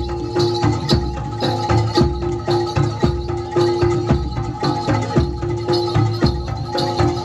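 Live Javanese gamelan-style ensemble music: struck metal mallet instruments holding ringing tones over drums in a steady beat.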